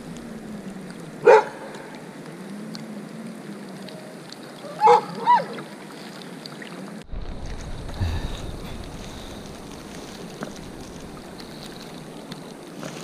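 A dog barking: one bark about a second in, then two more about four seconds later, over the steady rush of river water.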